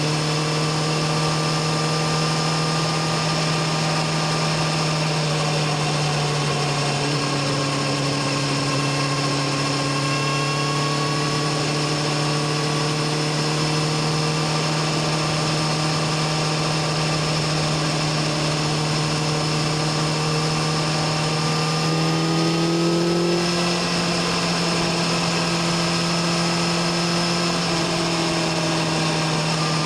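BMW S1000RR's inline-four engine running steadily under way, its exhaust note holding an even pitch. About two-thirds of the way through the pitch steps up a little, then drops back near the end.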